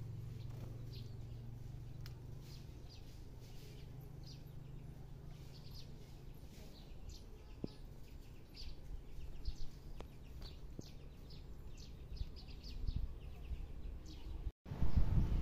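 Small birds chirping in short, scattered high calls, over a low rumble that fades after the first few seconds and a few low thumps later on.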